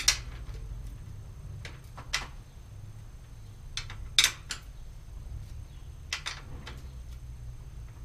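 Sharp metallic clicks and clinks from hand tools working on a bicycle's rear brake during adjustment, a handful of them a couple of seconds apart, the loudest right at the start and about four seconds in, over a low steady hum.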